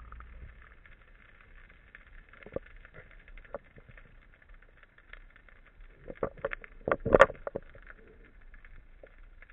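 Underwater sound picked up by a speargun-mounted camera: a faint steady crackling hiss with scattered clicks and knocks. A cluster of louder knocks comes about six to seven and a half seconds in, the loudest near seven seconds.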